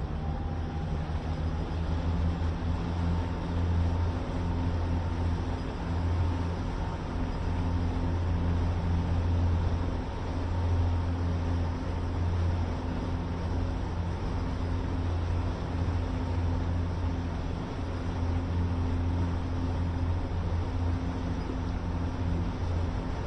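Towboat's engines running steadily at cruising speed under the load of a boat on tow, a low drone with a steady rushing hiss of wind and water over it.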